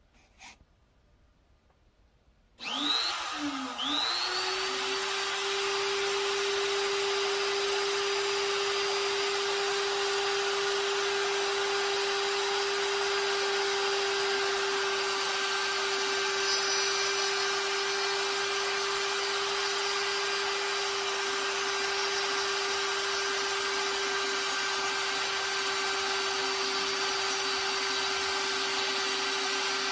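A die grinder mounted in a lathe's tool post switches on about two and a half seconds in, winds up to speed and then runs at a steady high pitch with a hiss, its bit grinding the flanks of a 3D-printed plastic worm thread to remove the layer lines.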